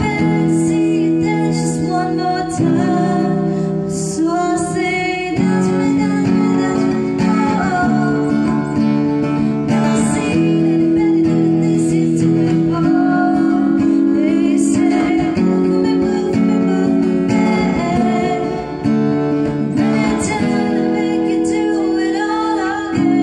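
A woman singing close to a microphone, accompanying herself on an acoustic guitar.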